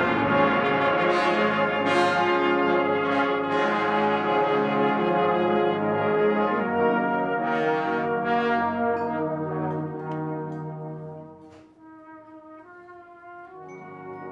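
Brass band playing a slow, hymn-like tune in full loud chords, which die away about three-quarters through, leaving softer held notes that swell a little near the end.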